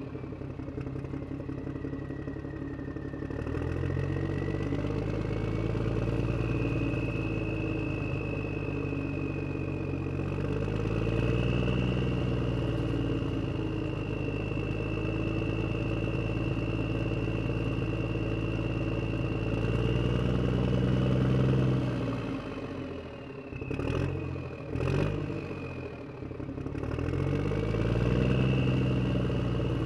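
Truck engine sound running with a high whine above it, revving up and easing off in several long swells. About three-quarters of the way through it drops away briefly with a couple of sharp clicks, then builds again.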